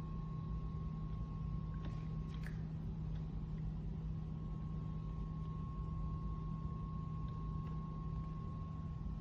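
Steady low hum with a thin, higher steady tone above it, and a few faint clicks about two seconds in.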